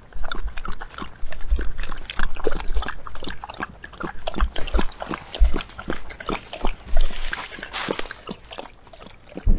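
Dog eating noisily from its food bowl: a fast, irregular run of chewing smacks and clicks, with a brief rustling hiss about seven seconds in.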